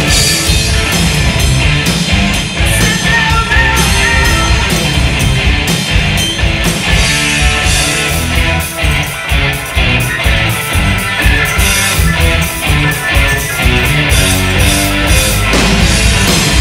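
Live rock band playing loudly, with electric guitars, a drum kit, keyboards and a lead vocal.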